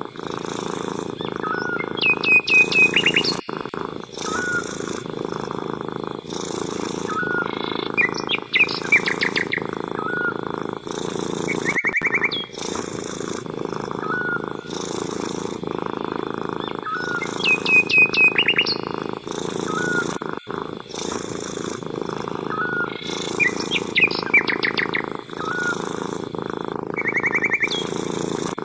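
Domestic cat purring in a steady, evenly pulsing rumble, with birds chirping in quick high trills every few seconds.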